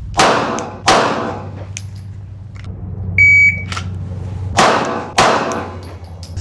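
Glock 17 9mm pistol fired twice in quick succession, the shots under a second apart and each trailing off briefly. A few seconds later a shot timer gives a short, high electronic start beep, and about a second and a half after it another pair of shots follows.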